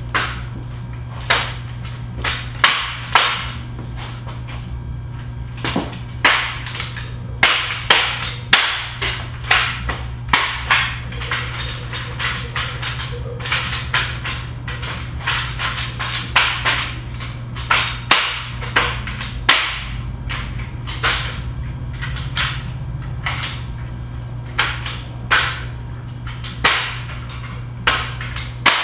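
Exhibition drill rifle being spun and caught: a long run of sharp smacks as hands slap onto the rifle, irregularly spaced and sometimes in quick clusters, over a steady low hum.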